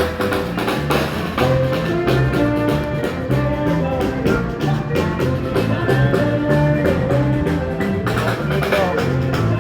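A street band playing live music: a melody and bass line over a steady, busy drum beat.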